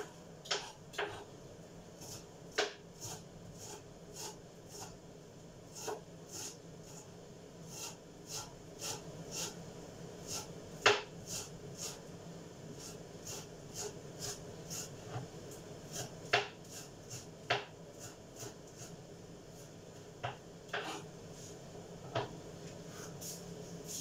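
Chicken adobo cooking in a lidded pan on a gas burner: irregular sputtering pops and crackles, about two a second, over a low steady hiss.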